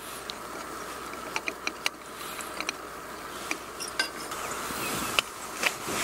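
Chopsticks clicking and scraping against a stainless steel pan while loosening flat kishimen noodles: a scatter of sharp, irregular clicks, several close together about a second and a half in and more near the end.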